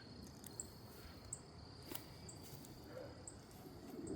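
Faint chorus of a yard alive with insects: a steady high-pitched trill with short, higher chirps about once a second.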